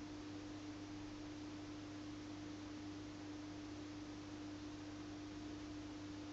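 A steady, faint hum holding one low pitch, with a weaker deeper hum beneath it and a soft hiss, unchanging throughout.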